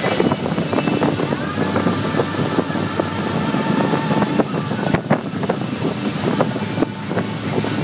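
Motorboat under way at towing speed: steady engine hum under the rush of the churning wake, with wind buffeting the microphone in irregular knocks.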